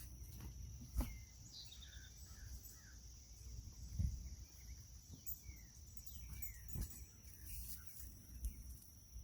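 Outdoor garden ambience: small birds chirping now and then over a steady high insect-like whine and low wind rumble, with a few soft thumps, the loudest about a second in and about four seconds in.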